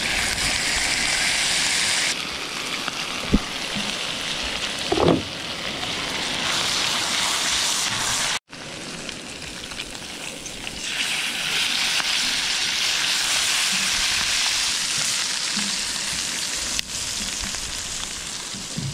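Halved crayfish sizzling loudly in butter in a hot pan, with a single knock about three seconds in. The sizzle drops out for an instant about eight seconds in, then carries on.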